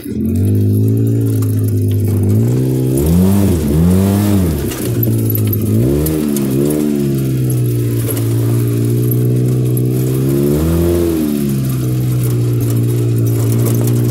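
ATV engine running under way, holding a steady note and revving up and easing off several times: twice between about three and five seconds in, twice around six to seven seconds, and once near eleven seconds.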